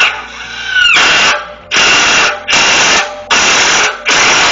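Power drill driving a screw through a thick aluminium ladder rail in about five short bursts of whirring with brief pauses between, the screw going in slowly against the hard metal.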